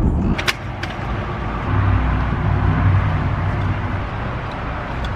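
Motor vehicle engine noise: a steady low hum over a rumble, with two sharp clicks about half a second in.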